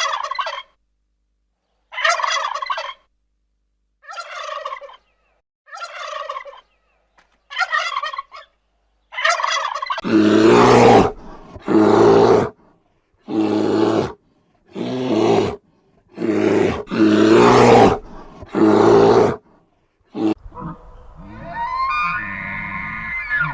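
An animal calling over and over: fainter pitched calls about every two seconds, then louder, deeper calls about every second and a half, and a different, more drawn-out call near the end.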